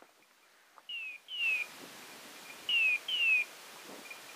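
Hunting dog's beeper collar sounding pairs of short falling beeps, three pairs about every two seconds, which mark where the dog is in the thick scrub.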